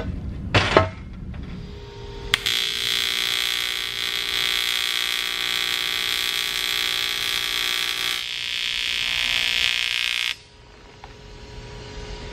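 AC TIG welding arc on a cast aluminum oil pan, a loud steady electric buzz. The arc strikes with a sharp click about two seconds in, its tone thins about eight seconds in, and it cuts off suddenly about ten seconds in as the weld is finished.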